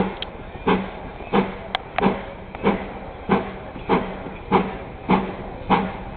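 Narrow gauge train running, with a steady, even beat of sharp knocks about one and a half times a second over a continuous rumble.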